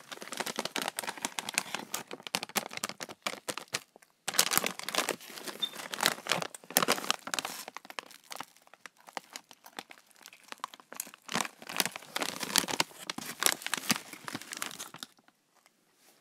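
Rold Gold pretzel bag crinkling as it is handled, a dense crackle with a brief pause about four seconds in, stopping about a second before the end.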